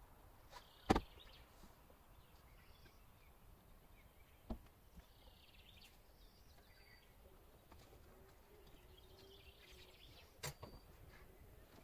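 A few knocks and clicks from a Land Rover Defender's rear door and step as a person climbs into the back: one sharp knock about a second in, a duller one a few seconds later and a couple of clicks near the end, over faint outdoor background.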